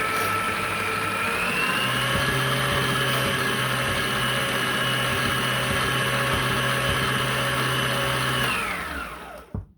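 Electric mixer motor running steadily while beating chocolate instant pudding and milk. Its whine steps up in pitch about a second and a half in, holds, then winds down and stops near the end.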